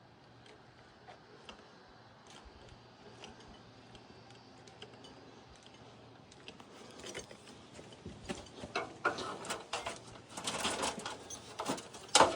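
Faint scattered ticks, then from about seven seconds in a run of sharp clicks and clattering that grows louder, with the loudest click near the end.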